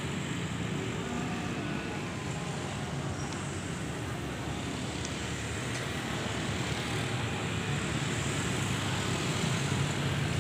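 Steady hum of distant road traffic, with no single event standing out.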